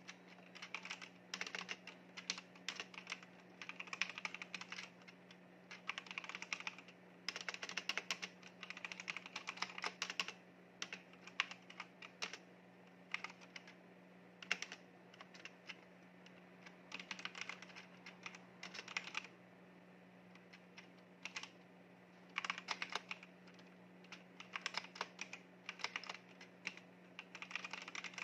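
Typing on a mechanical keyboard: fast runs of key clicks lasting a second or two, broken by short pauses. A faint steady low hum lies underneath.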